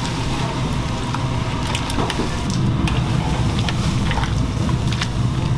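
Large aluminium stockpot of water at a boil on a gas range, giving a steady low rumble. Scattered light clicks and clatters come over it as blanched beef ribs are lifted out.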